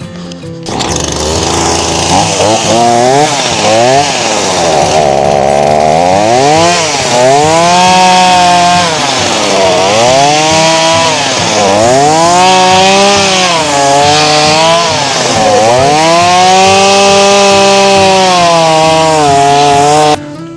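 Gas chainsaw's two-stroke engine running just after being cleared of flooding, revving up and down again and again with the throttle. It stops abruptly near the end.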